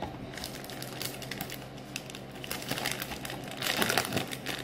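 Plastic candy wrapper crinkling and crackling as fingers handle it, a run of small crackles that grows busier and louder about three and a half seconds in.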